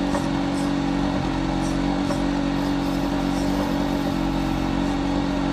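Small engine running steadily at an even speed, a constant hum that does not change in pitch.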